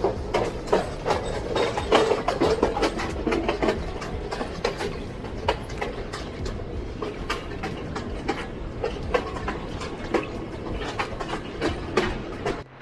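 Moving train heard from on board: a steady low rumble of the running gear with irregular clicks and knocks of the wheels over the rail joints and the carriage rattling.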